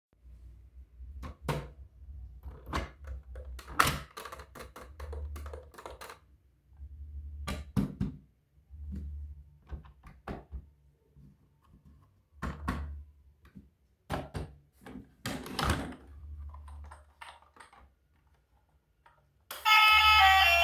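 Toys and their packaging being handled: irregular clicks, taps and knocks, with a low rumble that comes and goes. Music with plucked strings starts near the end.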